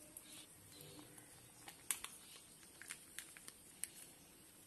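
Near silence with a few faint clicks: a spoon tapping the bowl as curd is spooned onto flour.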